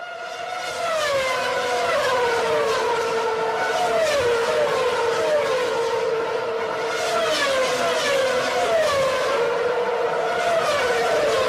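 Sport motorcycle engine running at high revs, its pitch dipping over and over, roughly once a second.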